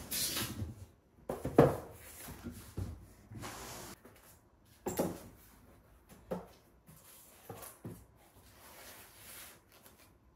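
Corrugated cardboard scratcher pieces being handled, slid and set down on a wooden floor: a series of scrapes, rustles and knocks, the loudest about one and a half seconds in.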